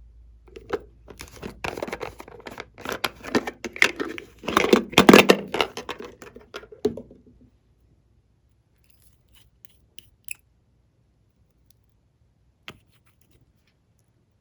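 Glossy slime being stretched, squeezed and pulled apart by hand, with a dense run of crackling, popping and tearing sounds for about seven seconds, then a few isolated clicks.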